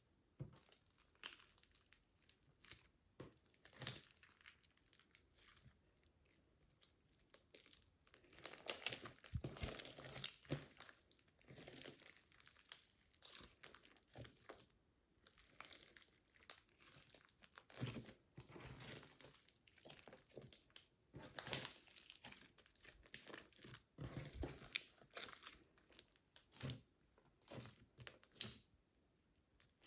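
Slime being squeezed and worked inside a plastic bag: the plastic crinkles and the slime crackles in irregular bursts with short pauses between.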